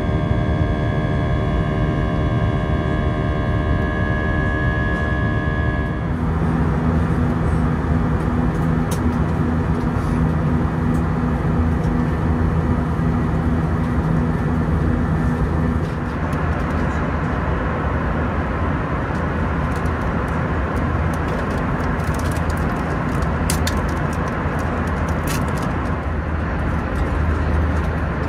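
Background music for about six seconds, then the steady roar of an Airbus A320 heard from inside the cabin: engine and airflow noise with a low steady hum, changing in character about sixteen seconds in.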